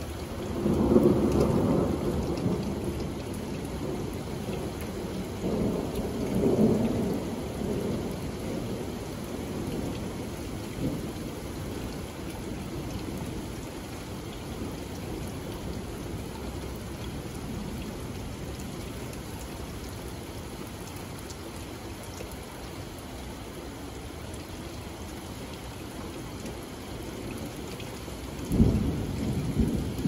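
Steady rain falling on a wooden deck and lawn, with low rumbling swells about a second in, again around six seconds in, and near the end.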